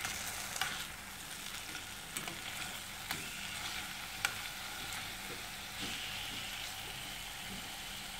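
Marinated chicken pieces sizzling steadily in a little oil in a nonstick frying pan, with a few sharp clicks of a fork against the pan as the pieces are turned over.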